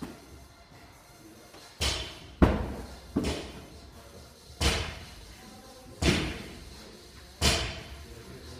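A 225 lb barbell with bumper plates thudding onto the floor as deadlift reps are set down, six impacts, the later ones about one and a half seconds apart.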